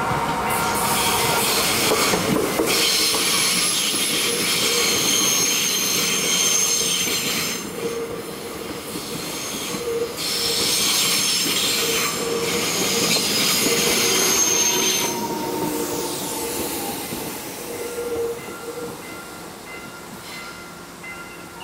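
An electric commuter train passes close by, its wheels squealing against the rails in several high, steady squeal tones. A little past halfway the squeal stops and the sound drops to a quieter running noise with a briefly falling whine.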